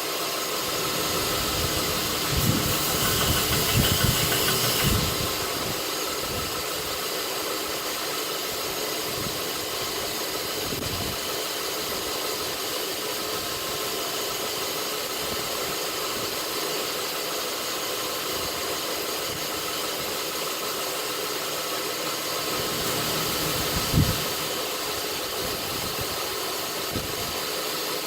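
Knife-making belt grinder running steadily with a hissing belt noise. The hiss swells for a few seconds near the start, and there is a single sharp knock about 24 seconds in.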